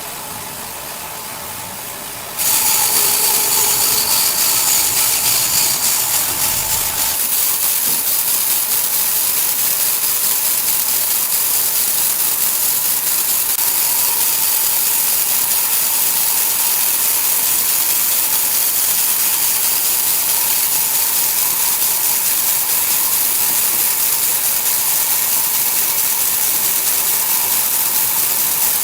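Sawmill saw working on an ironwood log: steady mechanical running with a hissing, grinding cutting noise and a constant whine, which jumps suddenly louder about two seconds in and then holds level.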